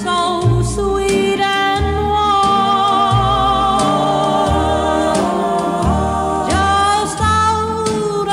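A song with a singer holding long, wavering notes over a steady bass line.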